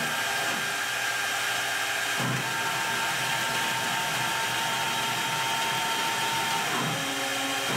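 CNC router spindle running at a steady speed with a high whine while the head traverses the board. A second steady tone, from the stepper-driven axis, comes in about two and a half seconds in and stops just before the end.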